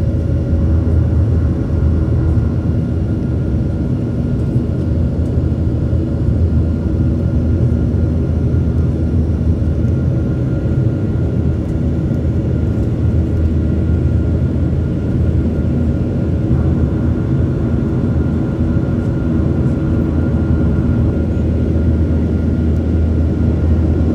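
Steady cabin drone of a Boeing 737's turbofan engines during the climb after takeoff, heard from inside the cabin: a deep, even rumble with a faint steady whine over it.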